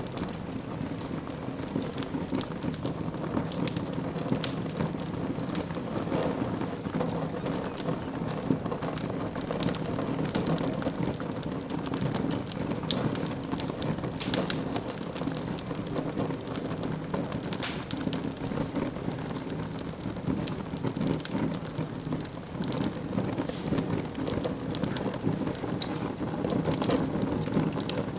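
Wood fire in a fireplace crackling, with a steady low rush of flames under many small irregular pops and two sharper snaps, one about halfway through and one near the end.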